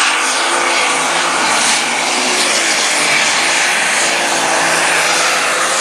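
Light super stock pulling tractor's engine running flat out under load as it drags the weight-transfer sled, a loud steady howl with a high whine that rises right at the start and then holds level.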